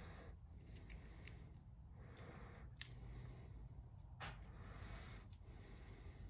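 Faint handling sounds: wire ends and a plastic two-pole circuit breaker being picked up and turned in the hands, with light rustles and small clicks and one sharper click about three seconds in.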